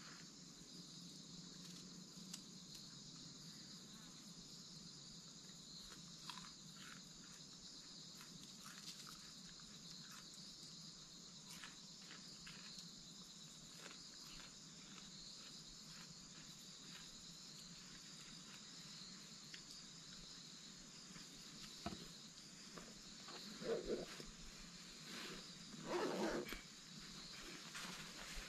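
A steady, high-pitched chorus of insects with a few faint small handling noises. Near the end come two louder rustles, as a backpack is handled on a plastic tarp.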